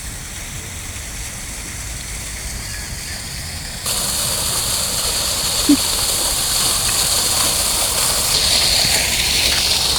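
Running water splashing steadily, becoming suddenly louder about four seconds in.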